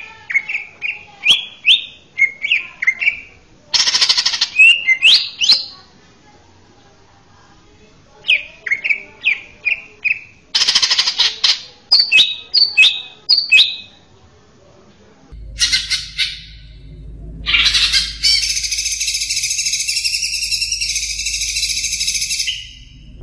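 Male green leafbird (cucak ijo) singing: runs of short whistled notes that slide up and down, broken by louder harsh bursts. In the last several seconds the song turns into a long, continuous buzzing chatter. A low hum comes in about halfway through.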